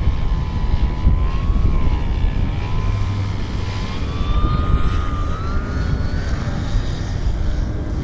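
The electric motor and two-blade propeller of a ParkZone BF-109G radio-control plane whine as it flies low past. The pitch wavers, then rises about five to six seconds in before fading. Heavy wind rumbles on the microphone.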